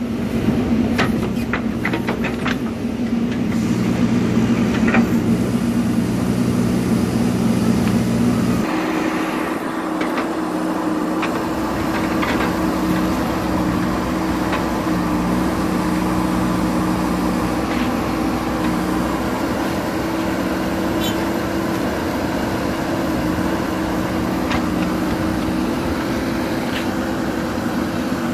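JCB 3DX Super backhoe loader's diesel engine running steadily, with a few sharp metallic knocks in the first few seconds. About eight and a half seconds in, the engine note shifts and holds at a higher pitch.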